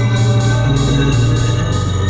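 Music: sustained organ-like keyboard chords over a bass line that moves between held notes, with a light steady beat above.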